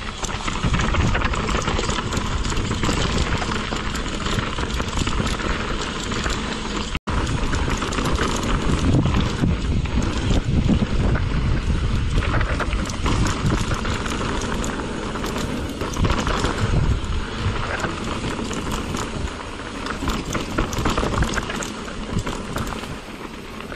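Mountain bike running down a rough dirt trail: tyres rolling over dirt and rocks, with the bike rattling and clattering over the bumps. The sound cuts out for an instant about seven seconds in.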